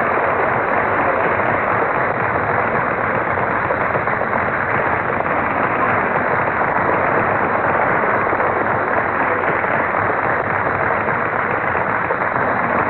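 Large crowd in an assembly hall making a steady, loud din of applause and voices.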